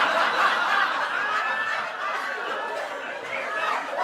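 Audience laughing, loudest in the first second or so and then easing a little.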